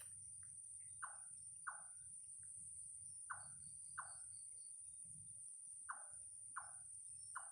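A strange squeak that the speaker cannot explain: about seven short squeaks, each falling in pitch, coming every second or so and often in pairs, over a steady high-pitched whine.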